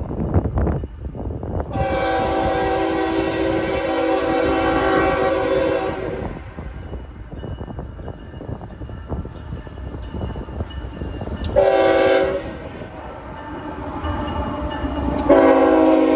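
Diesel locomotive air horn sounding a chord of several tones: a long blast of about four seconds, a short blast about six seconds later, and another long blast starting near the end. Underneath is the steady rumble and clatter of the moving train.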